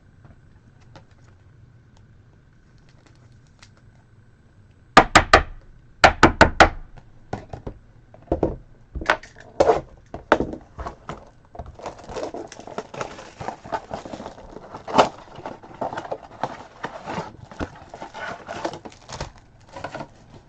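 Sports-card pack being opened: the wrapper crackles and tears, with a run of loud sharp crackles about five seconds in and steady crinkling from about twelve seconds in.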